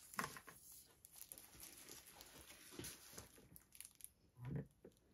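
Faint rustling and crinkling of disposable plastic gloves as hands move over the canvas, with a short low thud-like sound near the end.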